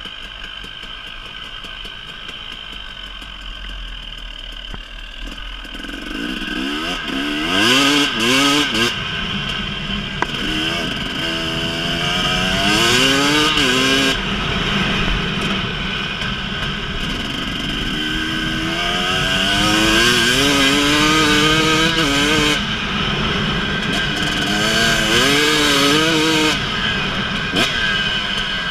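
2018 KTM 300EXC single-cylinder two-stroke dirt bike engine under way on a dirt track, running at low throttle at first, then about six seconds in being opened up and revved hard several times, its pitch rising with each pull and dropping back at each gear change or roll-off.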